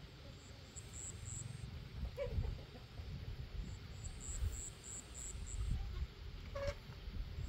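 Outdoor ambience: an insect chirping in short high pulses, about four a second, in runs, over an uneven low rumble. Two brief higher sounds come about two seconds in and again near the end.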